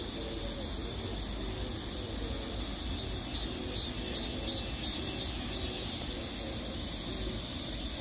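Insects chirping: a steady high-pitched drone with a run of quick repeated chirps about three to five seconds in, over a low rumble.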